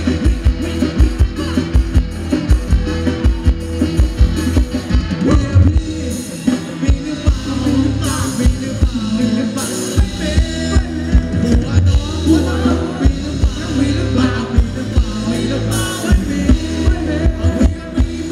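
Live ramwong band music played loud through a sound system, a heavy drum beat over a deep bass. About six seconds in the drum hits thin out while the deep bass holds, and the steady beat comes back about sixteen seconds in.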